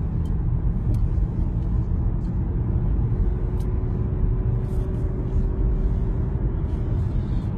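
Steady low road and engine rumble heard inside a moving car's cabin, with a few faint clicks.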